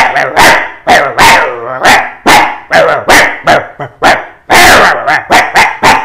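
A man imitating a street dog fight with his voice: a rapid run of loud, ferocious barks, two to three a second and coming closer together near the end, with one longer cry about four and a half seconds in.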